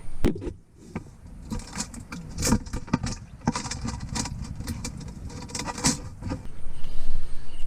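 Handling noise from a plastic bottle fish trap as the catch is taken out: irregular clicks, knocks and rattles, a dozen or so scattered through, over a low rumble.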